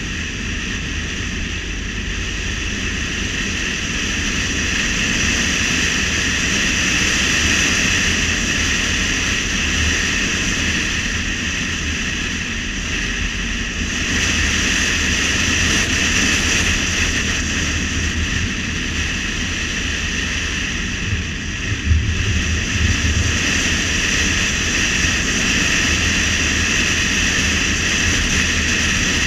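Steady road noise from a car driving at speed: tyre and wind noise over a low rumble, a little louder from about halfway through, with a brief burst of low thumps about two-thirds of the way in.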